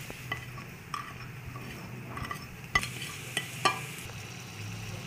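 Ground spices frying in hot oil in a kadai with a faint steady sizzle, while a metal spatula and spoon stir and knock against the pan, about five sharp clinks, the loudest about three seconds in.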